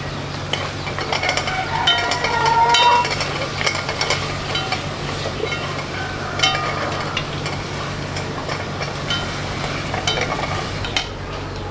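Food sizzling and frying in a hot pan while it is stirred, with scattered clicks and short metallic clinks of utensils, most of them between about one and three seconds in.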